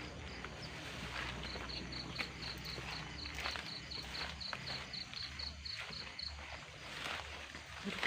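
A cricket chirping in an even high-pitched pulse, about four to five chirps a second, pausing briefly near the start and stopping about six seconds in. Scattered rustles and footstep-like scuffs run underneath.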